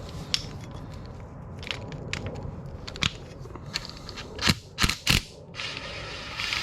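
Wrench and socket clicking and clanking on metal as the starter mounting bolts are worked loose, in irregular sharp knocks, the loudest three coming close together about four and a half to five seconds in.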